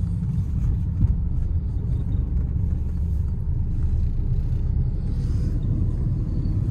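Maruti Suzuki Ciaz's engine and tyres heard from inside the cabin while driving: a steady low rumble. A single knock comes about a second in.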